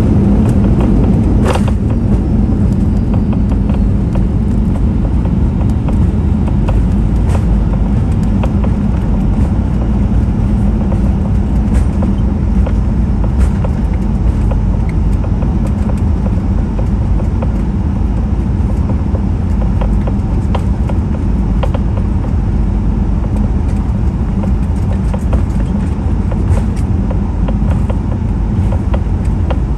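Cabin noise of a Boeing 737-800 rolling out on the runway after touchdown: a loud, steady low rumble from the wheels and CFM56-7B engines, with occasional short knocks and rattles.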